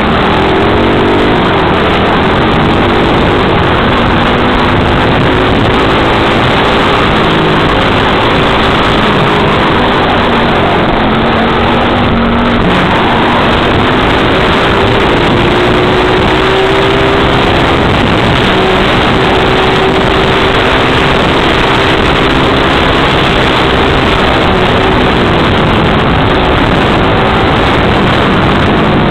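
125cc four-stroke pit bike engine running under way, its pitch rising and falling as the throttle is worked, over a constant rush of noise.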